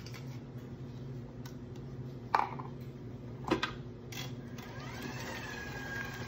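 Two sharp knocks against a stainless stand-mixer bowl, each with a short ring. Near the end the stand mixer's motor starts, its whine rising and then holding steady as the paddle runs at low speed through choux dough.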